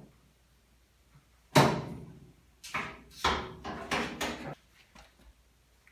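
A sharp metal knock about one and a half seconds in, then a string of clanks and scrapes for about two seconds: hands working at the open hood hinges and gas-strut brackets of a 1950 Willys Jeepster while the struts are swapped.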